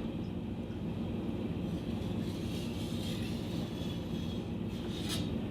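Katana blade being rubbed back and forth on a wet Shapton Kuromaku water stone, a steady grinding scrape, while a rolled edge is honed out.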